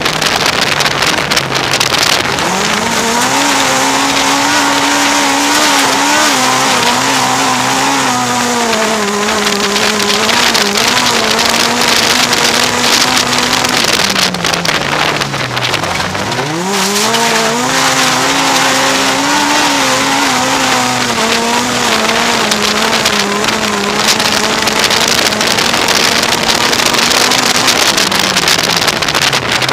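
Autocross race car's engine heard from inside the cockpit, running hard at high revs. The note dips sharply about halfway through as the throttle is lifted, climbs straight back up, and dips again near the end. A loud hiss of tyres on loose dirt and wind runs underneath.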